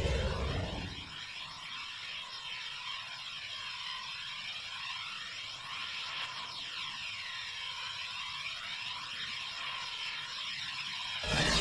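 A high, shimmering soundtrack ambience with no bass, made of wavering, sweeping tones that keep repeating at an even level. Near the end a louder, fuller sound cuts in.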